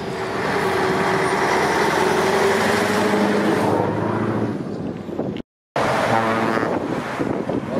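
Scania V8 diesel truck engine running, with road noise. The sound cuts out for a moment about five and a half seconds in, then the engine is heard again.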